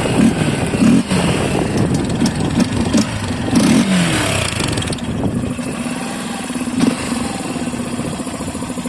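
Yamaha Factor 150 single-cylinder engine revved in a series of quick throttle blips, then settling to a steady idle about five seconds in. The air filter box cover is held by only two screws and left partly open, which makes the intake louder.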